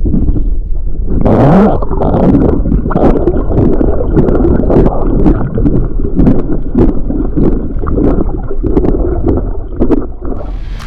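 Strong wind buffeting the microphone over lapping, gurgling water, loud and continuous, with many short sharp clicks.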